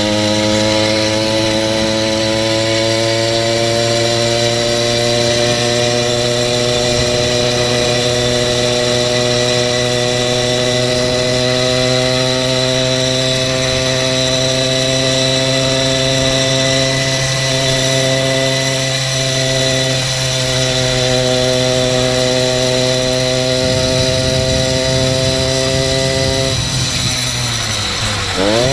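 A 66/80cc two-stroke bicycle engine kit running under power, its pitch climbing slowly and steadily as the bike gains speed. Near the end the throttle comes off and the pitch drops, then briefly rises again. The rider judges the mixture a little too rich.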